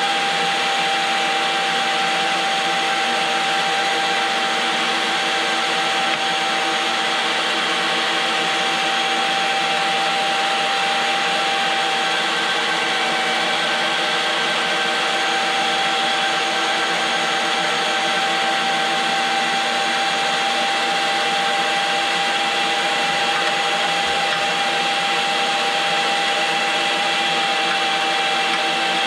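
STX Turboforce electric meat grinder running steadily as it grinds venison, its motor giving an even whine.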